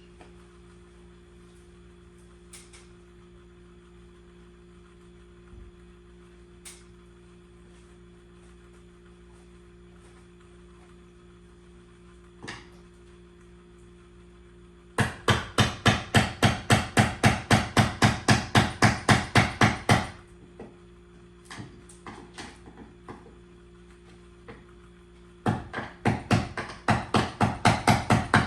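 Rapid, evenly spaced knocking, about five sharp strikes a second, in two runs of several seconds each, over a steady low hum.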